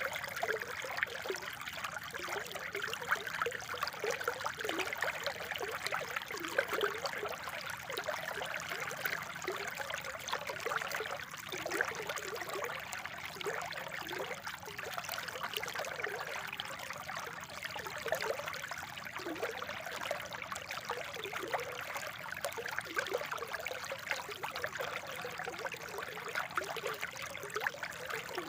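Spring water trickling and burbling steadily, with many small bubbling gurgles.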